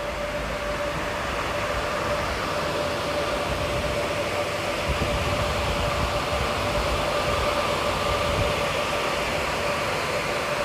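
Steady machine hum with a constant whine over a rushing noise, typical of bitcoin mining hardware and its cooling running.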